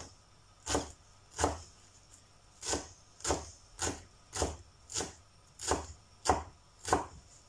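Large kitchen knife chopping fresh coriander finely on a wooden cutting board: about ten crisp knocks of the blade on the board, a little over one a second, with a short pause after the second stroke.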